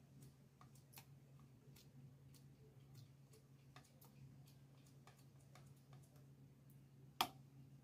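Near silence: a steady low hum with faint, irregular ticks and clicks from a soldering iron tip working a resistor lead on a TV circuit board, and one sharper click about seven seconds in.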